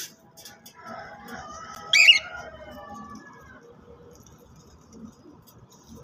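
Cockatiel calling: one short, loud, shrill call about two seconds in, among quieter gliding calls.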